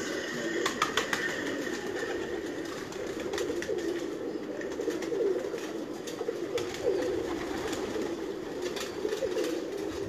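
A flock of domestic pigeons in a loft cooing, many overlapping coos at once without a break, with scattered sharp clicks and taps, the loudest about a second in.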